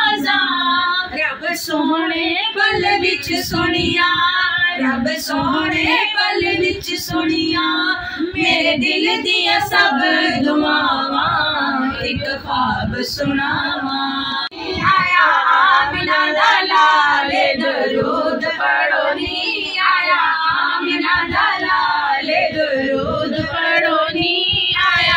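Several women's voices singing a naat together, unaccompanied, with a short break about halfway through before the singing picks up again.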